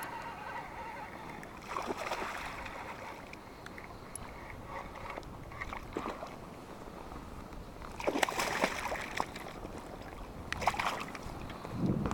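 Water splashing and sloshing around a small fishing boat, with a few short louder splashes about two, eight and eleven seconds in, the loudest around eight seconds.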